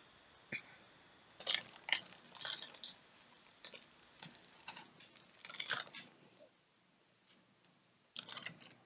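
Snack wrappers and paper packaging being handled: short, faint bursts of crinkling and rustling, with a pause of about two seconds near the end before more crinkling.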